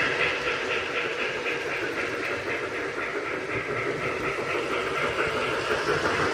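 O gauge model train running on the layout's track: a steady rumble with a fast, even clicking rhythm.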